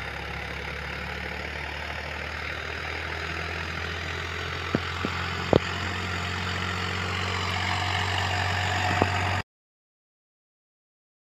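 Swaraj 855 tractor's 3478 cc diesel engine running steadily under load while pulling a disc harrow, slowly growing louder, with a few sharp clicks in the middle. The sound cuts off abruptly to silence a little over nine seconds in.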